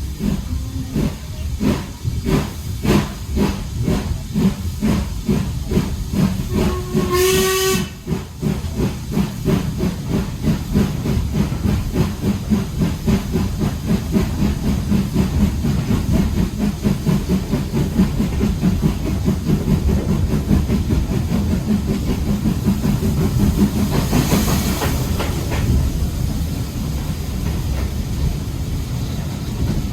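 Steam locomotive working hard and gathering speed, its exhaust chuffing in regular beats that quicken from about two a second to a rapid patter. Its whistle sounds once briefly about seven seconds in, and a short burst of steam hiss comes later.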